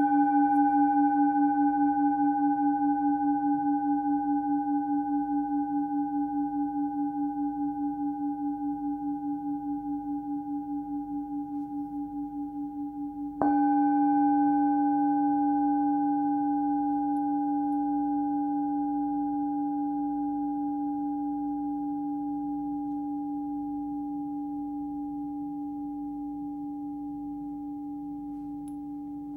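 A 16.5 cm singing bowl tuned near 290 Hz rings with a slow steady fade and a gentle pulsing wobble, with a few higher overtones above its main tone. It is struck again about halfway through and rings out the same way.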